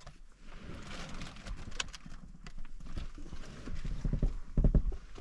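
Sliced mushrooms being placed onto a tortilla wrap by hand: light, irregular taps and rustles, with a few heavier knocks near the end.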